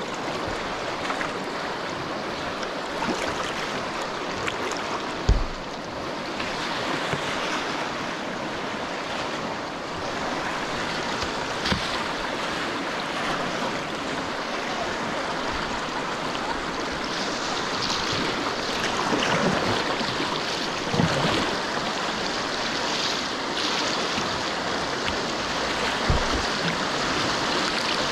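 Fast river water rushing and splashing around a whitewater kayak, with the paddle blades dipping and splashing in the current. A few dull knocks break through now and then.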